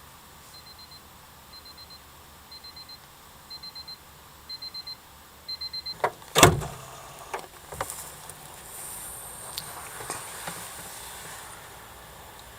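An electronic alarm beeping in quick groups of high pips, about one group a second and getting louder, stopped about six seconds in by a sharp knock, followed by a few clicks and rustling.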